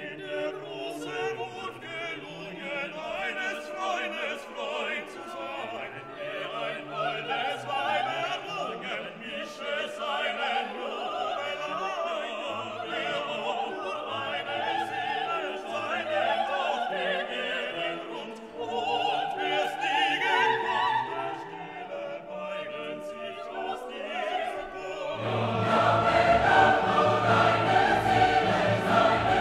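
Orchestral music with a choir singing, swelling louder with a fuller bass near the end.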